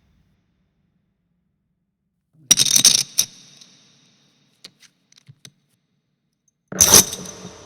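Foley of real poker chips and playing cards: a loud clatter of chips about two and a half seconds in, a few light clicks, then a second loud clatter near the end that trails off.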